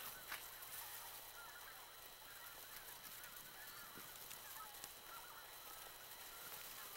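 A distant flock of geese calling, many faint overlapping honks, over a steady hiss, with one light click near the start.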